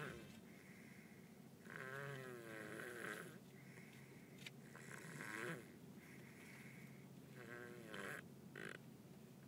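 Sleeping baby snoring, a rough snore with a wavering pitch on each breath, coming about every three seconds: one long snore, then two shorter ones.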